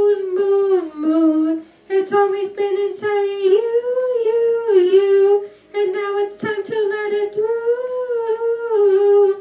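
A girl singing held, wordless notes into a handheld microphone, in about three phrases with short breaks between them. The pitch stays mostly level, with small dips and rises.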